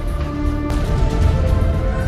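Loud theme music for a logo sting, with a heavy bass.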